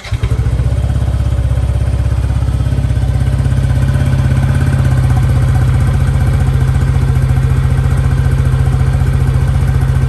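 Yamaha NMAX V1 scooter's single-cylinder engine idling steadily through a TSMP Silent Killer Stage 1 aftermarket muffler, a loud, even low exhaust pulse.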